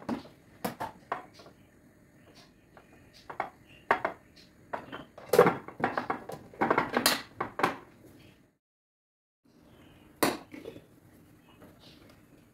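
Dishes and cutlery clinking and knocking in short, separate strokes, with a second of dead silence about eight and a half seconds in.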